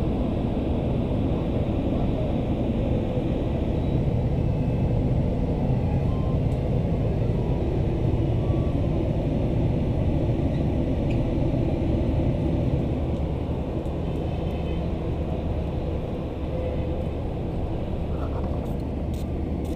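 Steady low rumble and hum of a passenger train.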